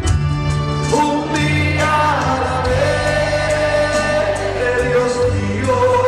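Christian worship song: a sung melody over sustained bass notes and a steady drum beat.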